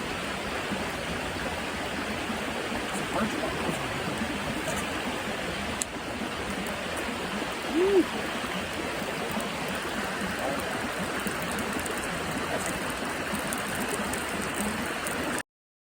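Rushing creek water, a steady even rush, with a brief voice about eight seconds in; the sound cuts off suddenly near the end.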